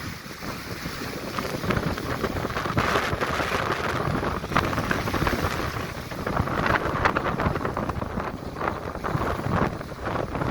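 Strong, gusty wind buffeting the microphone, swelling and easing every second or two, over the rush of high waves on the sea.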